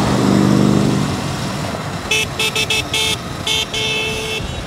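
A vehicle horn honks in a quick run of short toots, ending in a longer blast, in street traffic. A passing engine is heard at the start, fading within the first second or so.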